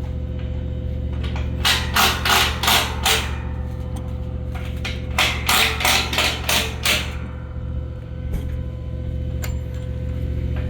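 Two runs of about five sharp knocks each, roughly three a second, over a steady low hum.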